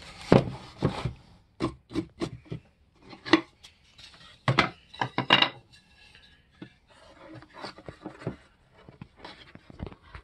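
Wooden hive-frame parts being handled and set into a wooden assembly jig: a string of sharp wooden knocks and clatters, then quieter rubbing and light taps in the second half.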